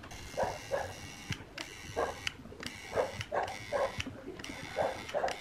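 Transformer soldering gun with a wire-loop tip buzzing in several spurts with short breaks as it is triggered to melt solder onto circuit-board pads. A dog barks repeatedly in the background.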